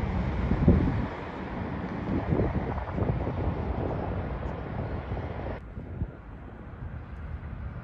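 Wind buffeting the microphone over the steady rumble of a distant Airbus A320-family jet airliner on the runway. About five and a half seconds in, the sound cuts abruptly to quieter, duller wind and distant jet noise.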